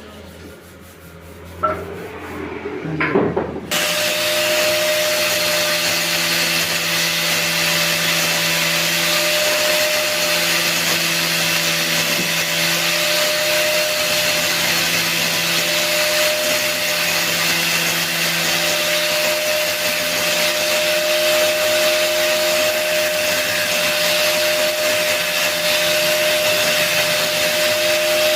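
Angle grinder fitted with a sanding disc running steadily with a constant whine, the disc rubbing on wood. It starts suddenly a few seconds in, after a few knocks.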